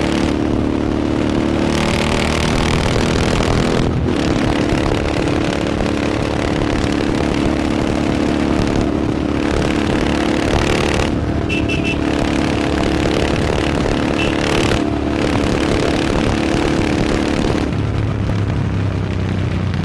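Royal Enfield Interceptor 650's 648cc parallel-twin engine with an aftermarket AEW exhaust, running under way. The steady exhaust note briefly eases off a few times, and near the end it drops to a lower note.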